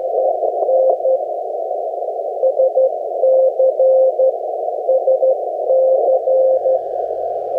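Morse code (CW) on a shortwave amateur radio on the 20-metre band: a single steady tone keyed on and off in dots and dashes, in groups with short pauses between them. It sits over band hiss that the receiver's narrow CW filter squeezes into a small slice of pitch.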